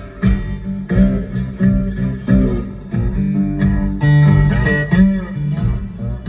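Instrumental guitar break of a blues song, plucked and strummed notes over heavy bass with some bent notes about four seconds in, played loud through a 2023 Nissan Frontier's car audio system.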